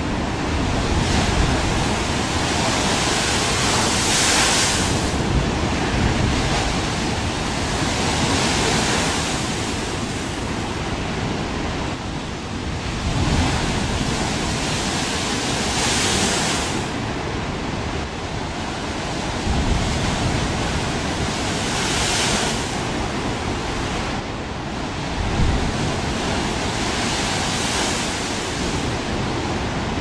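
Ocean surf breaking against a rocky shoreline: a continuous rush of white water that swells louder every few seconds as each wave hits the rocks and throws up spray.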